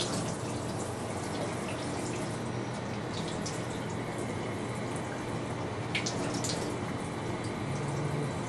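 Water running steadily into a bathtub, with a few small splashes.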